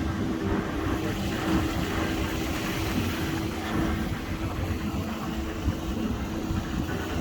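River tour boat's engine running with a steady hum over a rushing noise.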